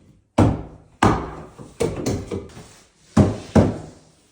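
Hammer striking wood: about six sharp knocks at uneven spacing, each ringing briefly.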